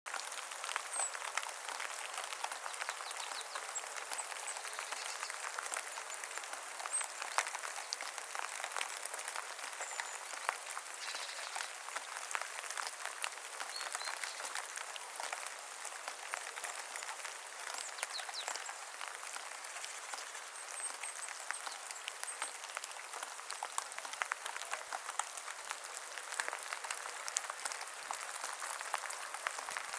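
Steady rain falling in a forest: a dense, even patter of countless drops. A few brief high bird chirps can be heard now and then in the background.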